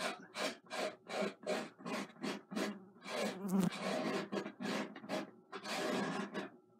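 Painting knife scraping and spreading oil paint across a canvas in rasping strokes: short quick strokes about two to three a second, then a few longer drawn-out strokes.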